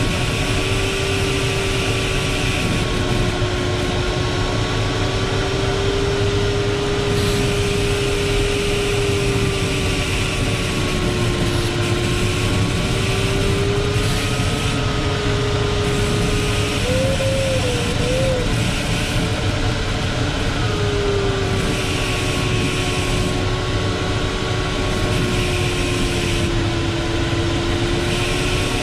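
Airflow noise in the cockpit of a Ventus 2cxT sailplane, with a variometer's steady electronic tone slowly drifting up and down in pitch as the climb rate changes. The tone breaks off for a few seconds just past the middle, with a brief warble.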